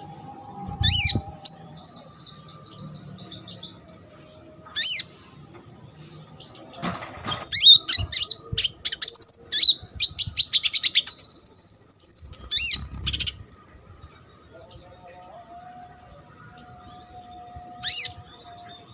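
A konin songbird singing a varied song: loud, sharp whistled phrases that sweep downward, broken up by quick runs of rapidly repeated chattering notes, with short pauses between phrases.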